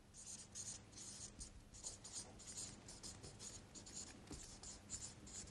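Felt-tip marker writing on flip-chart paper: a faint, quick run of short scratchy strokes, about three a second.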